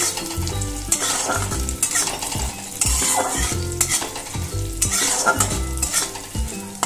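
Moong dal sizzling as it fries in hot oil in a metal kadai, stirred by a metal spatula that scrapes against the pan in strokes about once a second.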